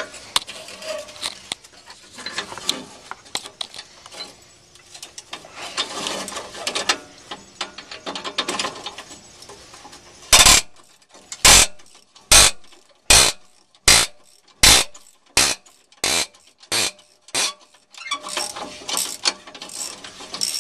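Socket ratchet wrench being worked, with a clatter of ratcheting clicks. About halfway through comes a run of about a dozen loud, evenly spaced ratcheting strokes, nearly two a second, before the lighter clicking resumes.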